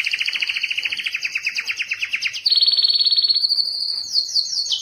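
Domestic canary singing a string of rapid trills, each made of fast repeated notes. It switches to a new, higher trill about halfway through and again near the end.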